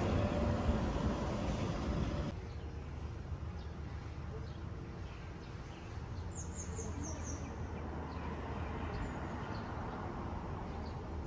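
Steady outdoor background noise with a low rumble that drops suddenly about two seconds in. About six seconds in, a bird chirps a quick run of four or five high notes.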